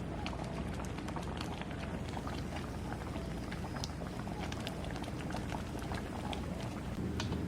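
Liquid boiling: a steady bubbling hiss with many small, irregular pops.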